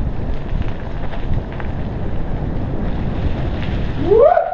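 Wind buffeting the microphone of a camera on a moving mountain bike, with a steady rumble from riding over a dirt trail. Just after four seconds a person's short call rises in pitch and then holds.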